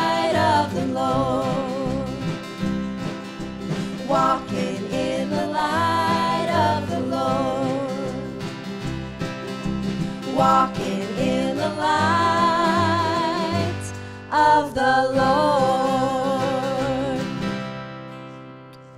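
Three women singing a country-gospel song in close harmony over acoustic guitar and cello. They finish on a long held chord that fades away near the end.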